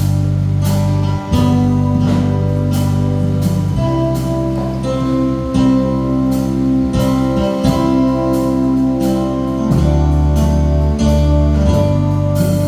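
Instrumental music: strummed guitar with regular sharp strokes over held chords that change every few seconds, with no singing.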